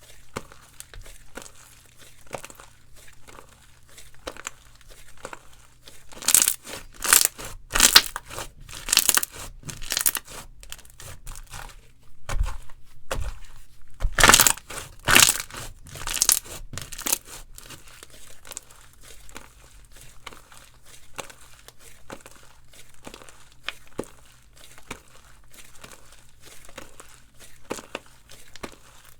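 Slime being squished, stretched and poked by hand, giving sticky clicks and crackly pops, with louder runs of pops from about six to ten seconds in and again around fourteen to seventeen seconds.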